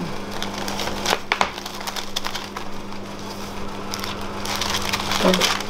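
Baking tray and cake board being handled as a cake is flipped over: a couple of sharp knocks about a second in, then rustling near the end, over a steady low hum.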